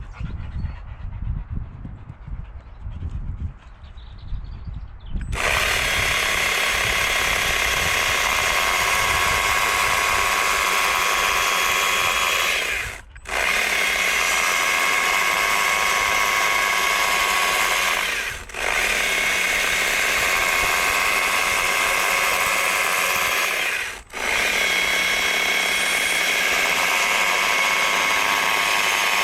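Irregular low rumbling and knocking, then about five seconds in a power tool starts and runs steadily at one constant pitch. It cuts out briefly three times and comes straight back.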